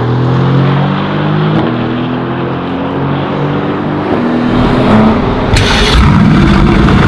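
Mercedes-AMG V8 sports car running on a race track, its engine note shifting in pitch. About four and a half seconds in the sound turns louder and rougher, with a short sharp burst of noise about a second later.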